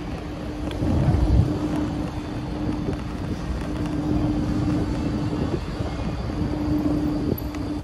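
Street traffic noise with a steady hum running through it, and a louder low rumble about a second in.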